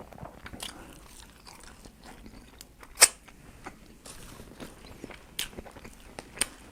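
Close-miked chewing and biting of food, with wet mouth clicks and small crunches; one sharp, loud smack or crunch about three seconds in.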